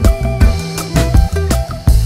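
Background music with a steady beat, about two drum hits a second, over a strong bass line.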